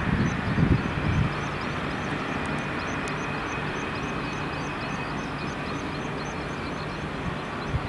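Fairchild A-10 Thunderbolt II jets taxiing, their twin General Electric TF34 turbofans running at low power as a steady jet rush and whine. A few low thumps come in the first second or so.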